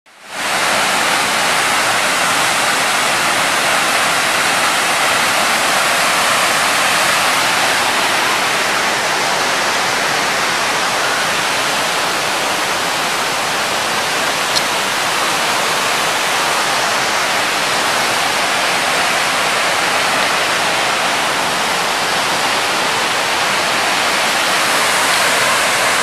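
Large jungle waterfall pouring onto granite rock: a loud, steady rush of falling water.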